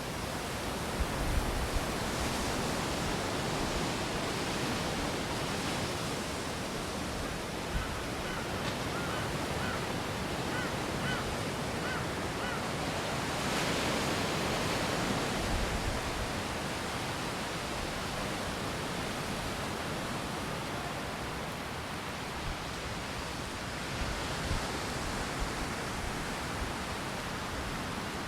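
Steady rush of wind and breaking surf, with gusts buffeting the microphone in low rumbles about a second in and again midway.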